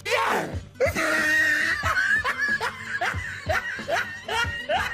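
Laughter: a run of short, quick 'ha' bursts, about three a second, each rising in pitch.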